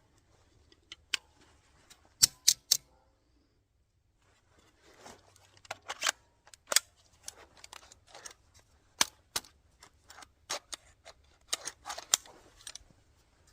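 Metallic clicks and clacks of a 9mm pistol and its magazine being handled and worked by hand. There are three sharp clacks with a short ring about two seconds in, then, after a brief pause, a busy run of clicks and scraping.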